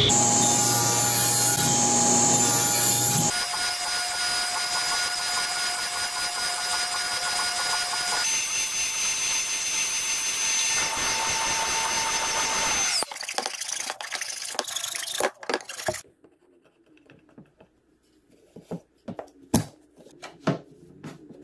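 Radial arm saw running and cutting a half-lap notch in a pine 2x2. It winds down about 13 seconds in. Then come scattered knocks of the wood pieces being handled and fitted together.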